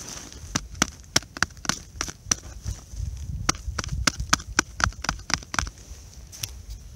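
Snow being dug and packed by hand against a tarp's edge: a quick, irregular series of sharp crunches and clicks, about two or three a second, that thins out near the end.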